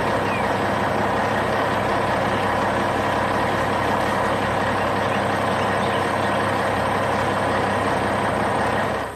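Heavy construction-vehicle engine sound effect running steadily at a loud, even level, then cutting off suddenly.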